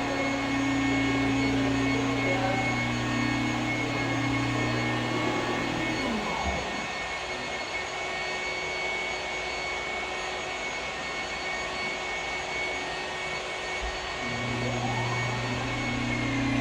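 Electric glass-polishing machine running with a steady hum over a constant hiss. Its motor winds down about six seconds in and spins back up near the end.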